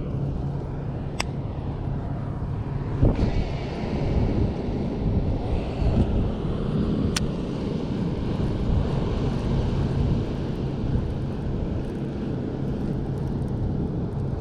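A motor drones steadily in the background, a low rumble with a constant hum. Two sharp clicks and a single knock sound over it.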